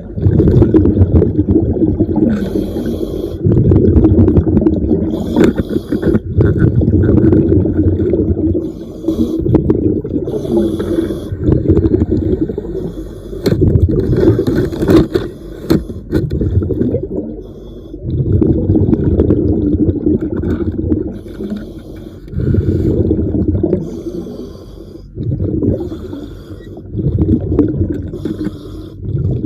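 Diver breathing underwater through a regulator: exhaled air bubbles rumbling out in repeating breaths a few seconds apart, with hissing in between.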